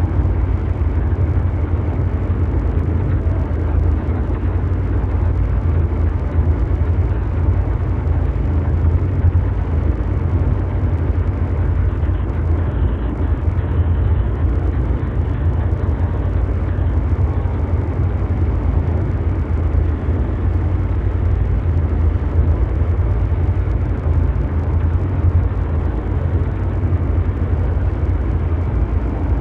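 Continuous low mechanical drone, an engine-like rumble built on brown noise, heaviest in the deep bass with a hiss above it, holding steady without breaks.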